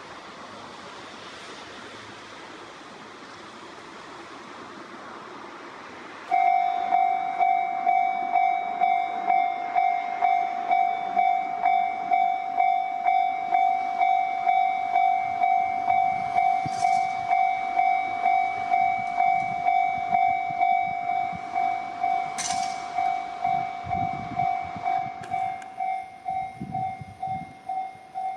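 Japanese railway level-crossing warning bell that starts suddenly about six seconds in and rings steadily at roughly two strikes a second, a single clanging tone. Low rumbling joins under it near the end.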